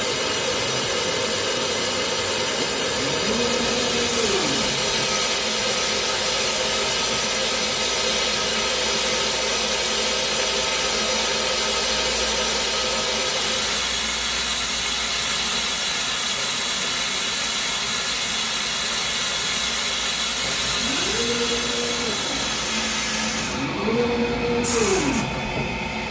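Steady hiss of workshop machinery, with motor whines that ramp up in pitch, hold and ramp back down: once near the start and twice near the end. The hiss drops out briefly near the end.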